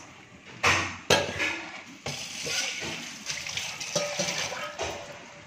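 Metal spatula clattering and scraping against a wok while stirring noodles in simmering broth, the broth sloshing. Two loud knocks about a second in, then steady stirring with smaller taps.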